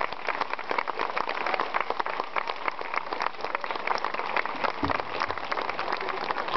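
Audience applause: a dense, steady patter of many hands clapping.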